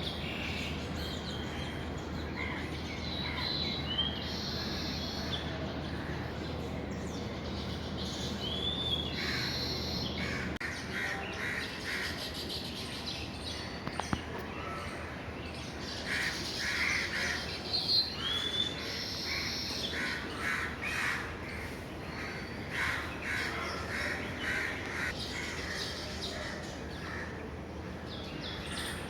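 Baya weaver birds chirping and chattering at their nests, with crows cawing among them. The calls come in many short, overlapping bursts, busiest in the second half.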